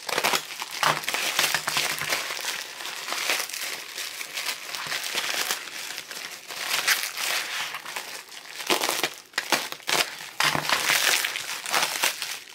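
Plastic bubble-wrap packaging crinkling as it is slit open with a utility knife and unwrapped by hand: a continuous rustle with irregular louder crackles.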